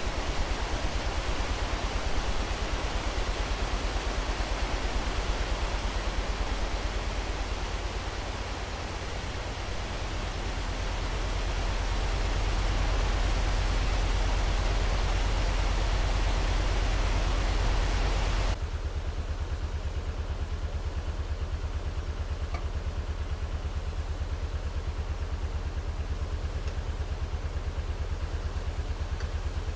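Water rushing loudly into a canal lock, over the steady low throb of a narrowboat's idling diesel engine. About two-thirds of the way through the rushing cuts off sharply, leaving the engine throb and a fainter wash of water.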